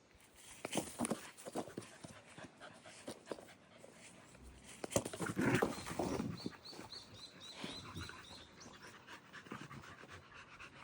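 Border collie panting, with scattered short knocks and a louder noisy stretch about five seconds in. Soon after comes a quick run of short high chirps, about four a second.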